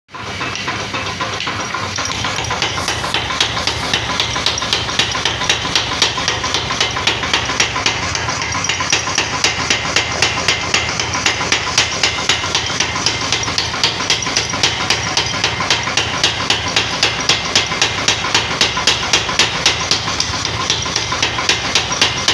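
Mechanical power hammer running, its ram beating a red-hot axe head held in tongs in rapid, even blows over the machine's steady running noise. The blows stand out from about three seconds in.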